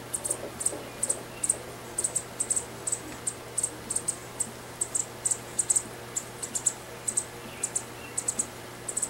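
Small songbird fledgling begging with short, very high-pitched chirps, repeated irregularly in twos and threes a few times a second, while an adult bird feeds it.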